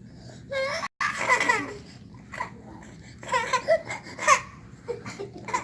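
A young child's wordless high-pitched squeals and cries in several short bursts, with the sound cutting out for an instant about a second in.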